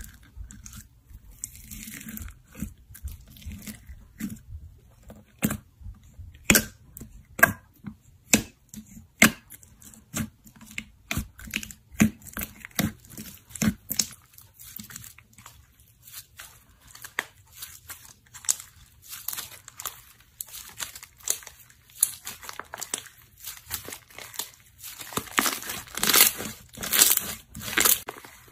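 Clear pink slime packed with foam beads being pressed and worked by hand, giving a string of sharp popping clicks about one to two a second, then stretched and folded with a denser crinkly crackle near the end.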